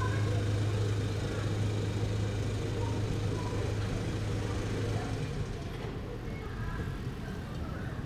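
A steady low machine hum over a constant background rumble; the hum stops about five seconds in while the rumble carries on.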